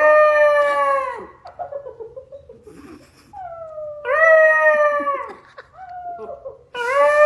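A dog yelling back in three long wailing howl-like calls, each sagging in pitch as it ends, with shorter whines between them: a vocal tantrum.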